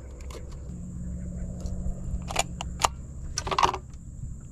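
A few sharp clicks and knocks from a plastic fish-tagging gun being handled and set down on a fibreglass boat deck while a flounder is tagged. Under them are wind rumble and a low steady hum that starts about a second in.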